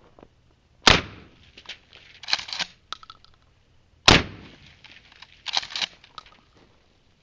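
Two blasts from a Mossberg 500 12-gauge pump shotgun firing 00 buckshot, about three seconds apart. Each shot is followed about a second and a half later by a quick pair of clacks, the pump being racked to chamber the next shell.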